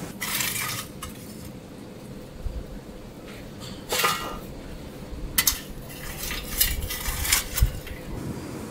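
Long metal fire tool scraping and clanking against the metal trays and hot stones of a wood-fired brick pit. There is one longer scrape near the start, a clank about four seconds in, then a run of sharp clinks near the end, over the low steady sound of the fire.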